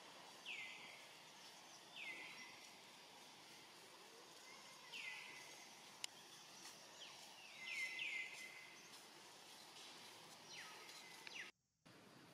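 Faint forest ambience with a bird calling now and then: short notes that sweep downward, about seven in all, three in quick succession about eight seconds in. The sound cuts out completely for a moment near the end.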